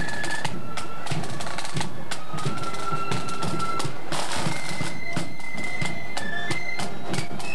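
Marching flute band playing a tune, the flutes carrying a melody of held notes over steady side-drum and bass-drum beats, with a short burst of noise about four seconds in.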